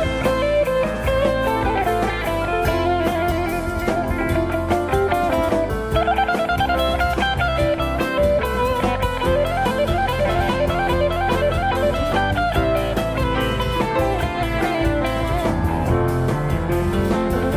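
Instrumental break in a gospel rock song: a guitar plays quick runs of notes over a drum kit, with a rising slide near the end.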